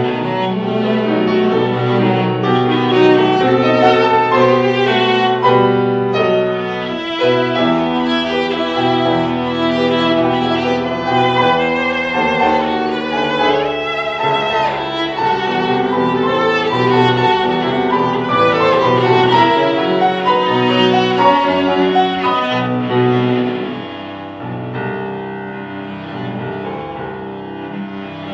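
Cello played with the bow, accompanied by a Steinway grand piano, in a classical piece. The music drops to a softer passage about three-quarters of the way through.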